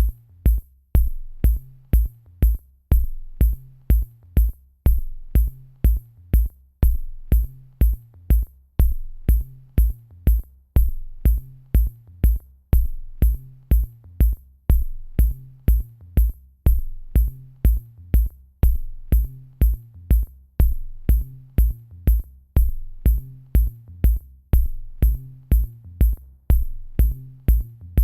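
Electronic background music with a steady drum-machine beat, about two kick-drum hits a second.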